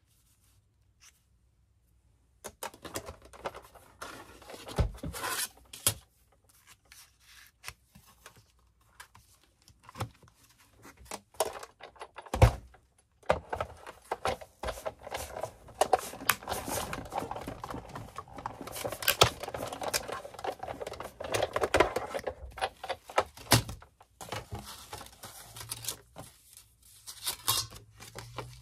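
Acrylic cutting plates and a metal cutting die being handled and set down, with one sharp thunk about twelve seconds in. Then, for several seconds, the die-and-plate sandwich is run through a die-cutting machine, with crackling as the die cuts through the paper.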